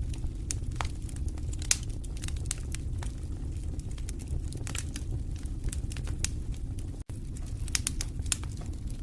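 Wood fire in a fireplace crackling: irregular sharp pops and snaps over a steady low rumble of the flames. The sound cuts out for an instant about seven seconds in.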